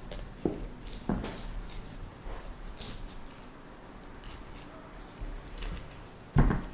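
Kitchen knife scraping and shaving the thick skin off a large jicama, in short, faint irregular strokes, with one louder dull thump near the end.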